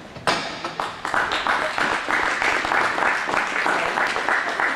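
Applause starting suddenly about a third of a second in and carrying on, with individual hand claps standing out close to the microphone.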